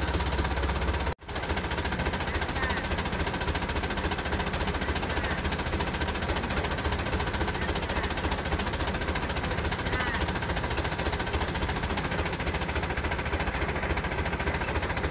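Diesel engine of heavy equipment running steadily with a rapid, even clatter. The sound breaks off for a moment about a second in.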